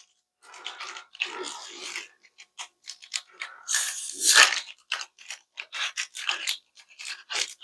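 Foil booster pack wrapper being crinkled and torn open by hand: irregular crackling, with a longer, louder rip about four seconds in and quick sharp crinkles after it.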